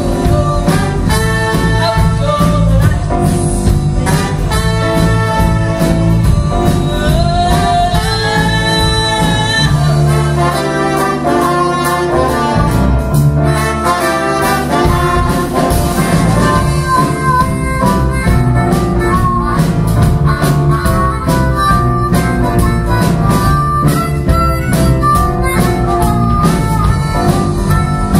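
A live band playing up-tempo jazzy folk music, with saxophones and a trumpet, a harmonica, keyboards and drums.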